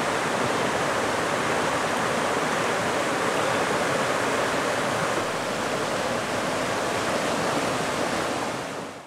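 River water rushing through a small rapid, a steady even rush that fades out at the very end.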